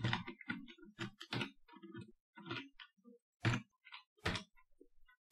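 Typing on a computer keyboard: a dozen or so separate keystrokes at an uneven pace, with short pauses between them.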